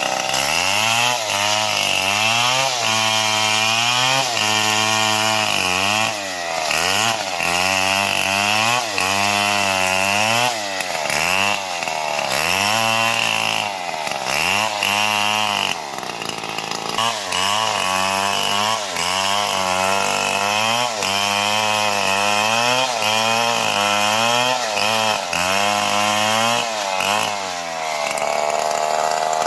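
Stihl MS 070 two-stroke chainsaw cutting neem wood under full throttle. Its engine pitch dips under load and recovers every second or so as the chain works through the cut. Near the end it comes free and runs at steady high revs.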